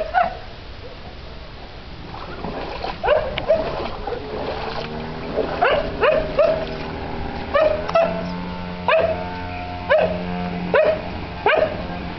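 A dog barking over and over, short sharp barks that each drop in pitch, coming about once a second and sometimes in quick pairs, starting about three seconds in.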